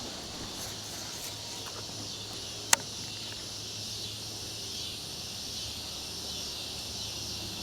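Insects chirring steadily in the background, with one sharp click a little under three seconds in.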